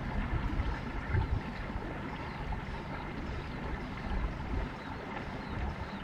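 Steady low wind rumble on the microphone, with faint, repeated high chirps from begging nestlings.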